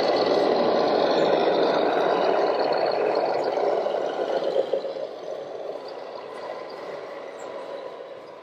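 Radio-controlled model vehicle running with a steady, grainy mechanical noise. The noise is loud at first and drops off after about four seconds.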